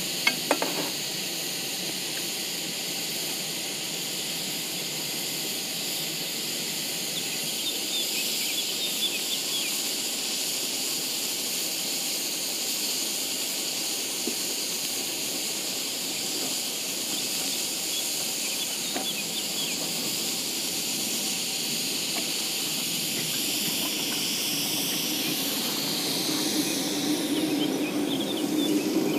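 A 5-inch-gauge live-steam model locomotive hissing steadily with escaping steam. Near the end it grows louder and a low rumble builds underneath.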